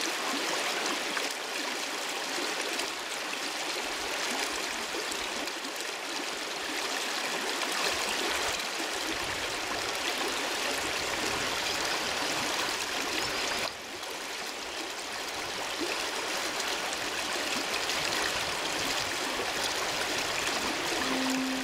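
Fast river current rushing steadily over stones, a strong, even rush of water that dips briefly about 14 seconds in. Keyboard music begins right at the end.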